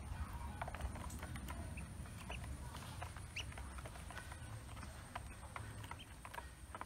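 Newly hatched ducklings in a plastic basin: many light, quick taps of bills and feet on the plastic as they peck at feed, with a few short high peeps.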